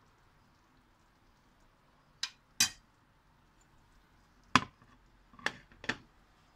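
Five sharp clinks and knocks of kitchenware, a metal spoon and a china plate against a frying pan and the glass-ceramic hob. There are two close together about two seconds in, then three more from about four and a half seconds.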